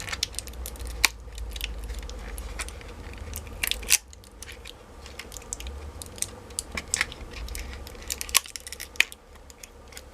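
Plastic notebook battery pack casing being pried and broken off its glued 18650 cells: irregular sharp cracks and clicks of hard plastic, loudest a few seconds in and again near the end.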